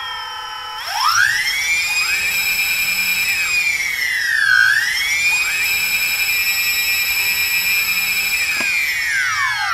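Drone propeller motors whining in a high, steady chord of several rotors. The pitch rises steeply about a second in, dips briefly midway, and falls away near the end as the throttle changes.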